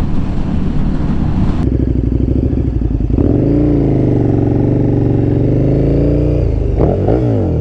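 Motorcycle engine running under way, heard from the rider's seat. About three seconds in the engine note rises as the bike accelerates, holds steady, then drops away near the end.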